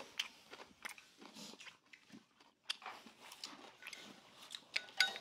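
A person chewing a mouthful of food close to the microphone, with irregular short clicks.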